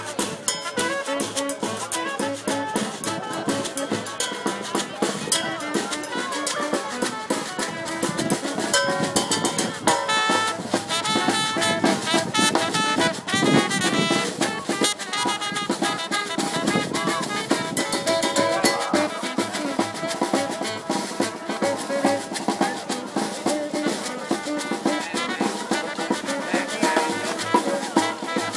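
Live brass band playing: trumpet and saxophone over a steady drum beat.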